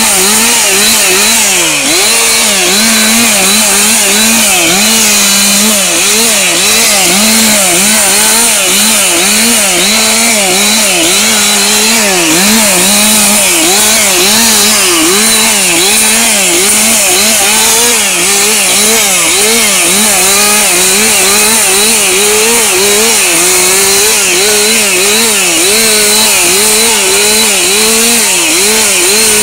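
Two-stroke chainsaw running at high revs while limbing a felled tree. Its pitch dips and recovers about once a second as the chain bites into branch after branch.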